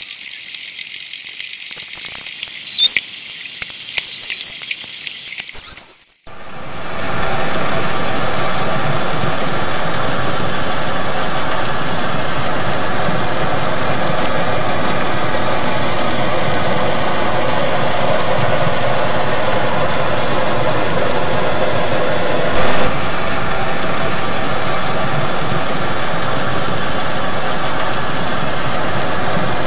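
Underwater recording of Chinese white dolphins (Indo-Pacific humpback dolphins) whistling, in rising and falling glides with clicks. About six seconds in, it gives way to steady vessel noise, a dense hum with many level tones, under which the faint dolphin whistles are masked.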